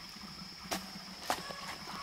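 A steel shovel working wet mud and soil, with two short scraping strikes a little over half a second apart, over a steady high-pitched background drone.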